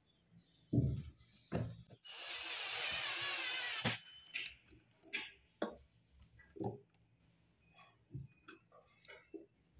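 A cordless drill runs in a single burst of about two seconds, then stops. A couple of knocks come before it and light clicks and taps of parts being handled after it.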